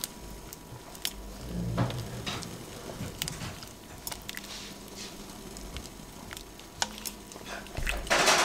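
A spoon stirring thick beetroot-and-vegetable soup in an enamelled cast-iron pot, with soft wet squelching and occasional light clicks of the spoon against the pot as a dollop of cream is stirred in. A brief louder burst near the end.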